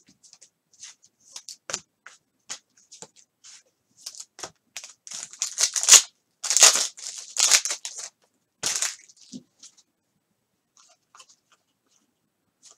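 Foil wrapper of a football trading-card pack crinkled and torn open by hand: a run of sharp crackles in the middle, loudest a few seconds before the end of the tear. Light rustles and ticks of cards being handled come before and after.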